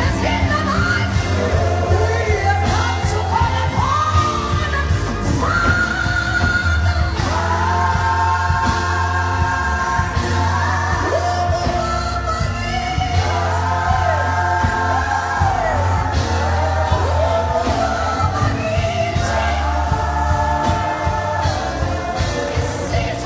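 A woman singing gospel live into a microphone over a band, holding long notes and sliding up and down between them, over a steady deep bass.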